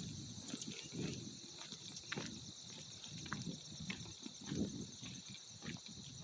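Crickets chirring in a steady, high, fast-pulsing chorus, with footsteps rustling and crunching through dry fallen leaves now and then.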